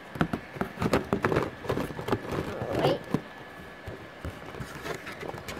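Plastic blister packs of Soccer Starz figures clicking and crackling as they are handled in a box: a dense run of sharp clicks over the first three seconds, then quieter, sparser handling.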